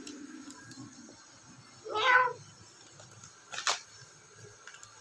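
A domestic cat meows once, a short call about two seconds in, followed a moment later by a brief, sharp noise.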